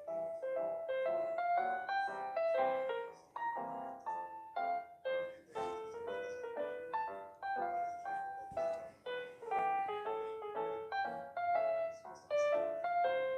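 Background music: a quick piano melody of short notes, several a second.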